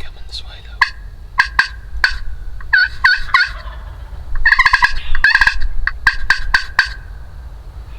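Wild turkey gobbler gobbling: a rapid rattling gobble about halfway through, with scattered short clucking and yelping calls before and after it.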